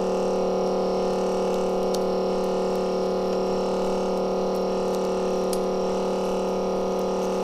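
Steady electrical hum of repair-bench machinery, several fixed tones held at an even level, with a couple of faint ticks.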